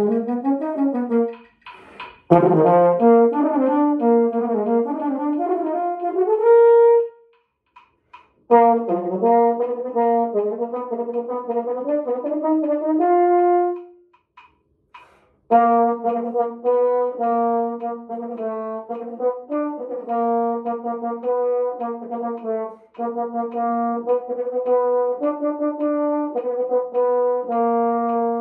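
Marching baritone horn playing technical exercises: runs of separately tongued notes in several phrases broken by short pauses, each phrase ending on a held note.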